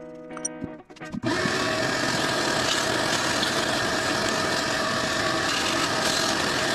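Shop vacuum switching on about a second in and running steadily, its hose sucking debris off the engine block's intake valley.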